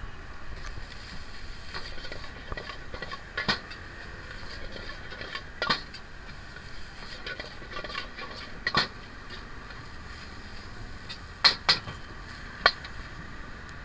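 Metal ladle striking and scraping a steel wok while stir-frying fried rice: about six sharp clangs at irregular intervals, two in quick succession past the middle, over a steady hiss.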